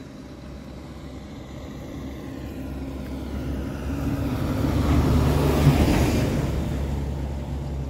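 A road vehicle passing close by: its engine hum and tyre noise grow steadily louder, peak about five to six seconds in, then begin to fade.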